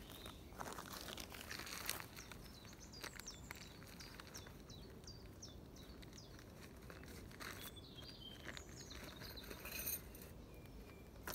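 Boots crunching and shuffling on dry twigs and leaf litter, loudest about two seconds in and again near the end. A small bird chirps through the middle in a quick run of short, high, falling notes.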